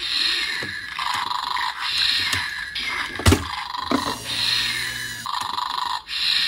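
Sound effects from a LEGO Mindstorms EV3 puppy robot's brick speaker: a run of noisy sounds, each about a second long with short gaps between, and a sharp click about three seconds in.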